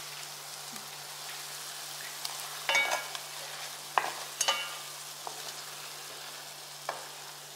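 Shrimp and squid sizzling in a soy-sauce mixture in an enameled pot, with a spatula stirring through them and knocking against the pot several times from about three seconds in.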